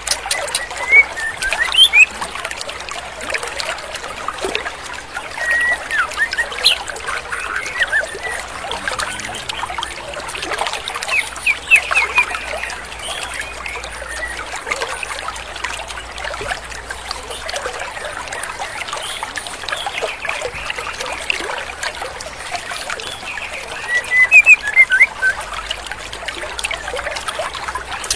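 Female white-rumped shama (murai batu) calling: short, sharp chirps in scattered clusters, loudest about a second in, around twelve seconds and near the end, over steady rushing stream water.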